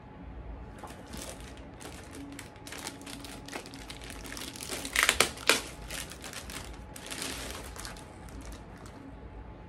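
Clear plastic bag crinkling and rustling as an electronic unit is unwrapped from it by hand, in irregular bursts that are loudest about halfway through.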